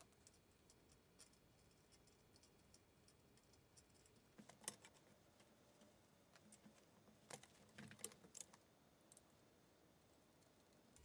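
Near silence broken by faint clicks and light knocks of cast-iron scroll saw parts being handled and fitted together on a wooden workbench. The clearest knock comes a little before halfway, with a few more close together about two-thirds through.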